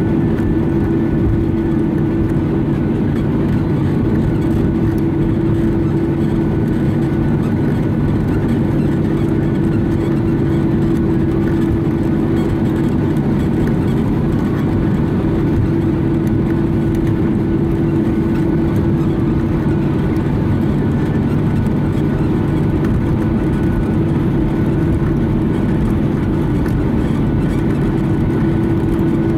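Boeing 737-900ER's CFM56-7B turbofan engines running at taxi power, heard inside the cabin over the wing as a steady drone with a strong low tone.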